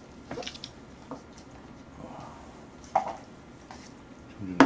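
Chopsticks handling jjapaghetti noodles in a metal pot: scattered soft clicks and wet noodle sounds, a sharper click about three seconds in, and a louder knock right at the end.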